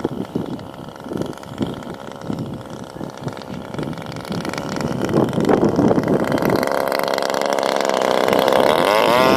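Fuel-powered model airplane engine running. Its note builds steadily and grows louder through the second half, then rises in pitch near the end as it revs up.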